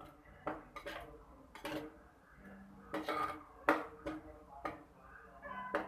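A spoon knocking and scraping against a cooking pan in irregular strokes as sautéed onion and grated coconut are stirred and turned.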